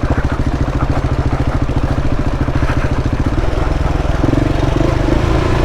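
KTM 690's single-cylinder engine running at low revs under load on a steep climb, its firing pulses coming evenly, with a change in its note about four seconds in.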